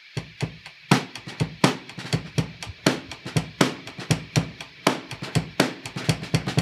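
A drum kit kicks in abruptly and plays a steady rock beat of bass drum, snare and cymbal hits, opening a band's song.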